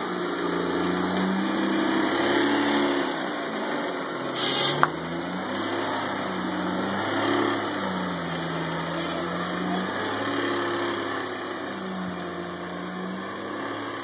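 Mitsubishi Eclipse engine running as the car backs away, its note dipping and rising several times with the throttle. A single sharp click about five seconds in.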